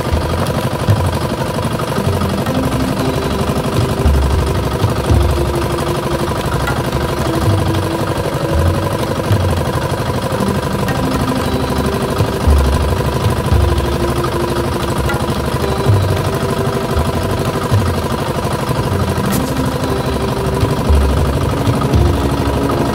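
Outrigger boat's small engine running steadily at low revs, with irregular low thumps over it.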